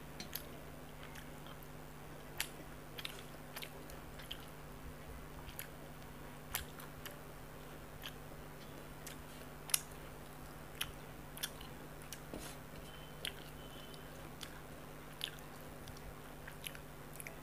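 Eating by hand: soft, irregular clicks and small wet smacks, roughly one or two a second, as fingers pick through parshe fish curry and rice on a metal plate and the mouth chews. A faint steady low hum runs underneath.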